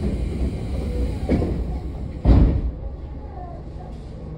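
Sliding doors of a Tobu 10030 series commuter train closing, ending in one heavy thud about two seconds in, over the car's low steady hum.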